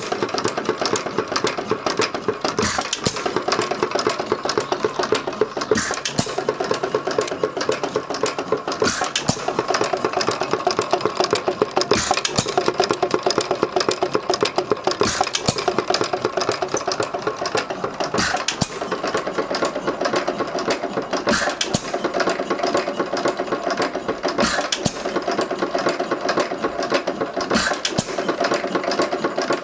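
1912 United 1½ hp stationary engine running: a fast, steady clatter from its valve gear and spinning flywheels, with a louder bang every three seconds or so as it fires.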